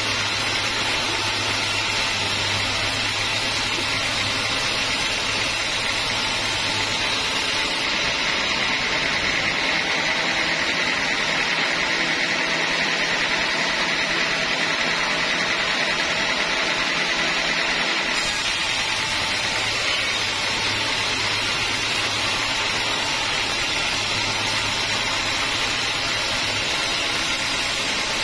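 Band sawmill running steadily as its blade saws through a teak log: a continuous mechanical hiss over a low hum. The hum drops away for about ten seconds in the middle, then returns.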